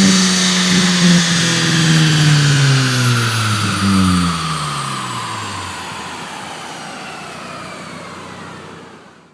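Ford Focus ST's turbocharged four-cylinder engine and exhaust, its note falling steadily in pitch and fading over several seconds as the revs drop away, then cutting off suddenly.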